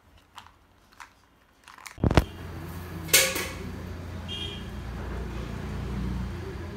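A few faint clicks, then two loud knocks about two seconds in. A steady low hum follows, with a sharp clatter about a second later and a brief high ring soon after.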